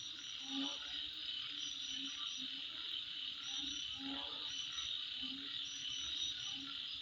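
Night-time insect chorus: a steady high-pitched trilling, with short trains of chirps above it and low calls pulsing every second or so.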